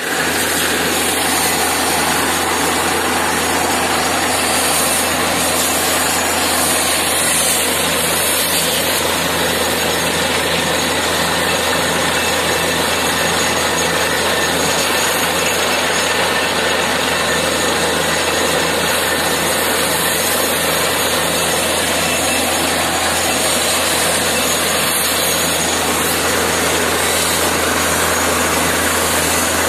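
Borewell drilling rig running steadily while boring for water: a loud, even machine drone with a constant hiss over it.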